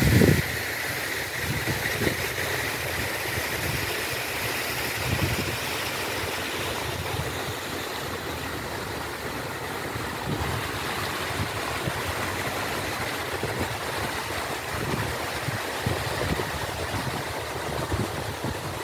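Wind buffeting the microphone in irregular gusts over a steady hiss of fountain spray, the hiss fading over the first several seconds.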